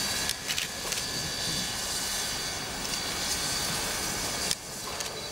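Quincy Railroad No. 2 steam tank locomotive rolling slowly with a steady hiss of escaping steam and a few light knocks in the first second. The hiss drops away sharply about four and a half seconds in.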